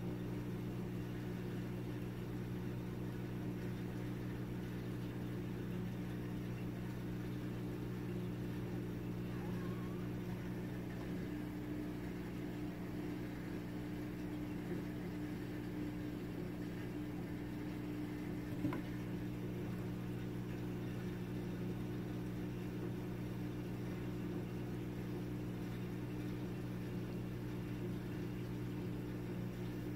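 Steady low mechanical hum, even in pitch, with a single sharp click about two-thirds of the way through.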